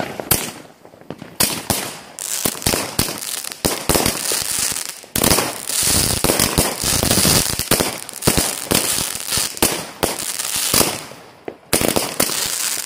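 Consumer firework battery (multi-shot cake) firing: rapid launch bangs one after another, with crackling stars hissing overhead through the middle. There is a short lull near the end before the shots resume.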